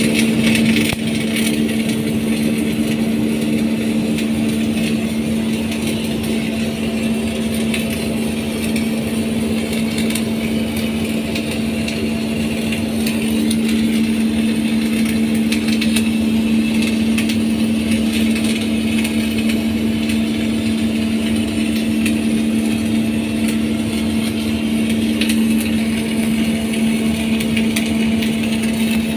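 Arc welding: a steady machine hum under a continuous fine crackle from the arc.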